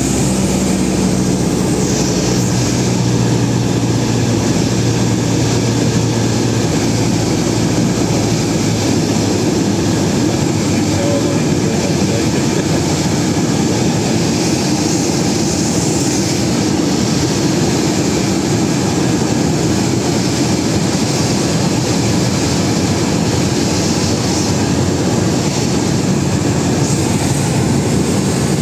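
Cessna 172's engine and propeller in flight, a loud steady drone with the rush of air, heard from inside the cockpit.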